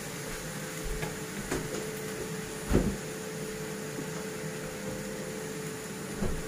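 Wooden spoon knocking against a granite-coated pot a few times while stirring a minced-meat filling, the loudest knock about three seconds in, over a steady mechanical hum.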